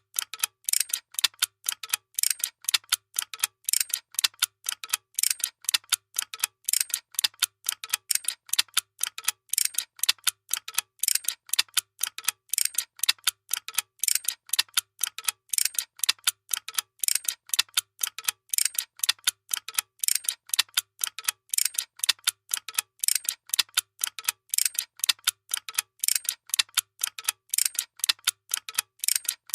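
A machine clicking in a steady, even rhythm of about three sharp clicks a second.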